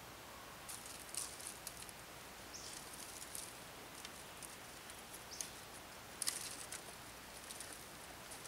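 Bundle of thin dry twigs being handled and pressed around a wooden broom handle, giving scattered crisp crackles and snaps, the loudest about six seconds in.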